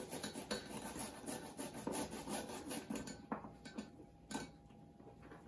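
Cut cabbage being handled in a bowl by hand: leaves rustling and rubbing in a dense, scratchy rustle for about three seconds, then quieter with a few light knocks.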